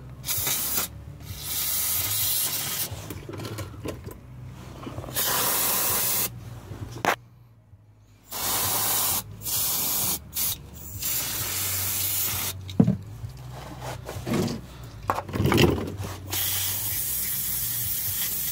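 Aerosol spray can hissing in repeated bursts of one to four seconds with short pauses, the nozzle pressed again and again, with a few light knocks in between.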